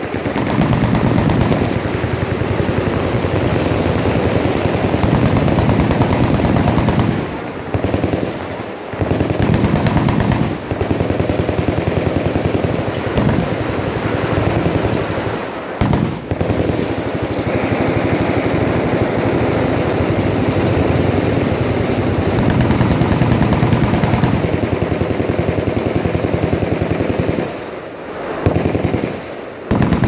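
Machine guns on a firing line shooting together in long sustained automatic bursts, a dense continuous rattle of shots. It breaks off in brief lulls about a quarter of the way in, around the middle, and near the end.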